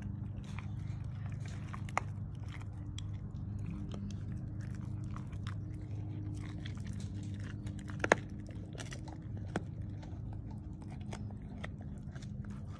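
A pit bull–type dog gnawing a hard white chew bone: irregular crunching and clicking of teeth on the chew, with a sharper crack about eight seconds in. A steady low hum runs underneath.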